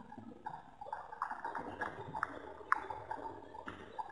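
Water slapping and splashing against the hull of a Hurricane 1000 RC yacht under sail, picked up by a camera mounted on the deck, with irregular taps and knocks.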